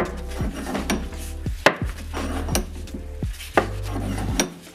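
Old rusty bench vise being unscrewed by its handle: sharp metal-on-metal clacks about once a second as the sliding handle bar drops against its stops with each part-turn of the screw, while the sliding jaw is wound out.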